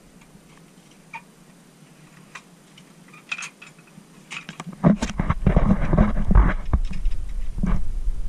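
A few faint clicks at first. About five seconds in, loud irregular rumbling and bumping sets in: wind buffeting and handling noise on an action camera's microphone.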